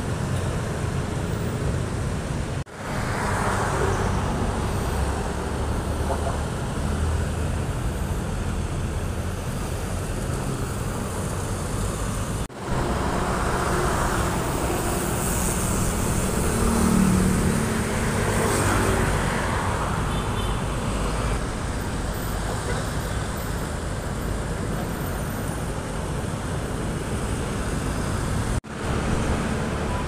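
Steady road traffic noise, a low rumble of passing vehicles, which cuts out sharply three times for a moment and comes straight back.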